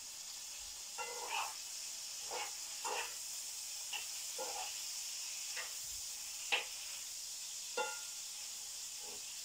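Food sizzling in a frying pan with a steady hiss, broken by irregular scrapes and taps of a utensil stirring it, about ten over several seconds.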